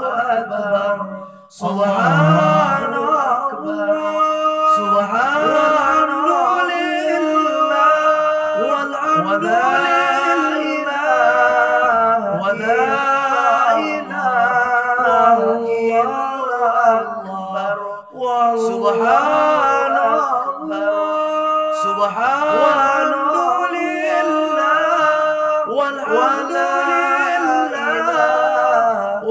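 Male voices singing an a cappella Islamic nasheed, a slow, wavering, drawn-out devotional chant with brief pauses between phrases.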